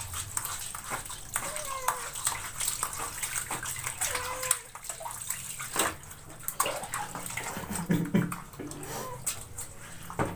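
Water splashing and sloshing in a plastic basin as a dipper scoops and pours water over a kitten being bathed, with scattered short splashes and a few faint kitten mews.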